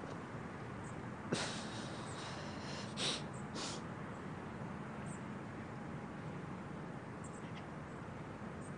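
Quiet room hiss, with a few short soft noises in the first four seconds as a woman sits down on an upholstered sofa.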